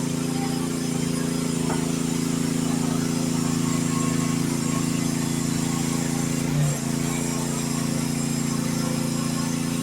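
Engine of a Youtop YT15 mini excavator running steadily, with one brief clunk about six and a half seconds in.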